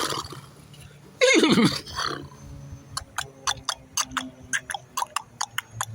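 A man imitating a horse with his voice: a wavering, falling whinny about a second in, then, from about halfway, rapid mouth clicks imitating clip-clopping hooves, about five a second.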